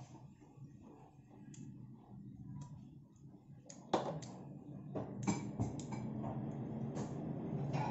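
Eating at the table: light clicks and taps of fingers and food against a dinner plate as barbecue is picked up by hand and eaten. The sharpest click comes about four seconds in, over a low steady hum.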